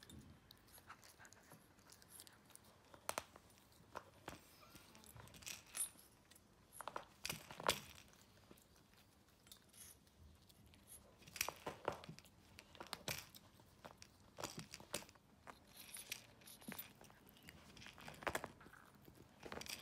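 Teething Maltese puppy chewing and gnawing on a plush elephant toy: irregular soft crunches, crinkles and fabric tearing sounds, coming in clusters with short pauses between them.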